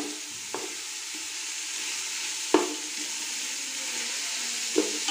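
Sliced onions with green chillies and whole spices sizzling in hot oil in a metal pot while being stirred with a wooden spatula. The spatula knocks against the pot three times, loudest about halfway through.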